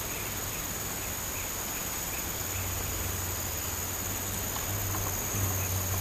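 Insects trilling steadily and continuously in a high pitch over open-air background noise, with a low hum coming in partway through.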